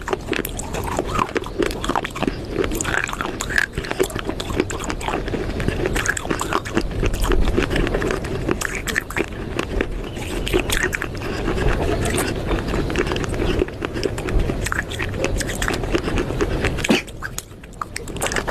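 Close-up crunching and chewing of baked clay pot pieces: dense, irregular gritty cracks and mouth sounds, with a short lull near the end.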